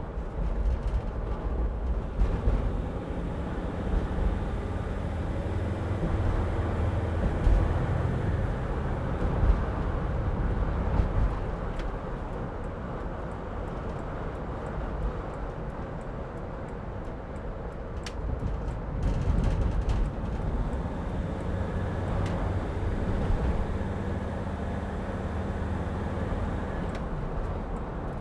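Cab noise of a 2006 Mercedes Sprinter van on the move: a steady engine and road rumble with uneven low swells from strong wind buffeting the van.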